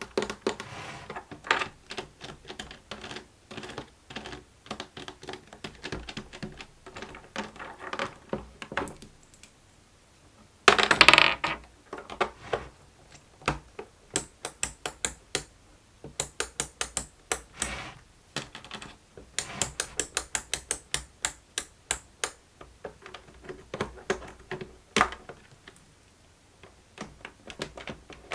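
Fidget board toy being played with: quick runs of clicks and taps from its buttons and switches, with one louder, noisier burst about eleven seconds in.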